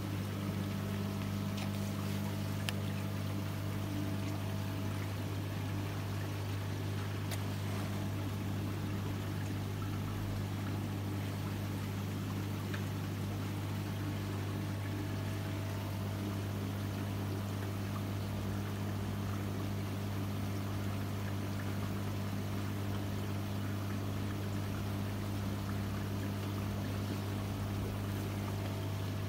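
Pump humming steadily at an unchanging pitch, with water trickling.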